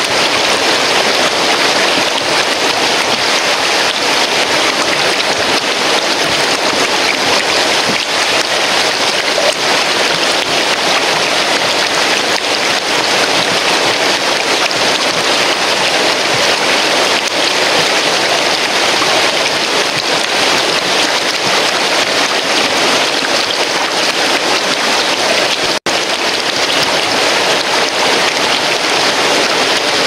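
Rushing water of a rocky mountain stream and waterfall: a loud, steady hiss of white water with no break except a momentary dropout about four seconds before the end.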